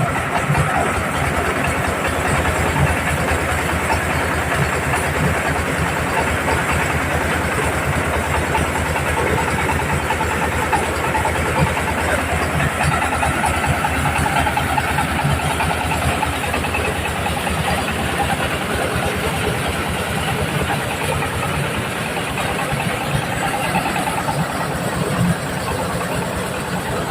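Engine-driven corn sheller machine running steadily, its engine chugging with a fast even beat under a dense mechanical rattle.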